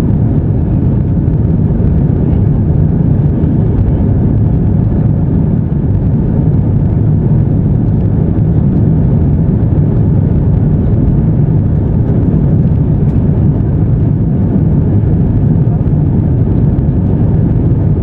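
Airliner jet engines during takeoff: a steady, loud, low-pitched noise with no change in pitch or level.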